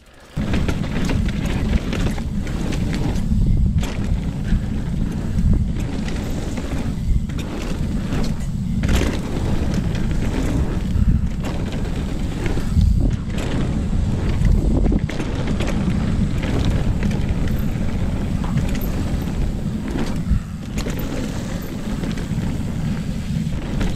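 Wind buffeting a chest-mounted GoPro's microphone as a Commencal Meta AM 29 mountain bike descends a wet dirt trail, with the bike knocking and rattling over bumps. The rumble cuts in suddenly just after the start.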